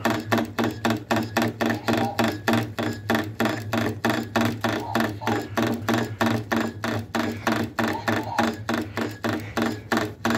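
ESPN arcade basketball game's speaker playing an electronic ticking beat, about three ticks a second, over a steady low hum.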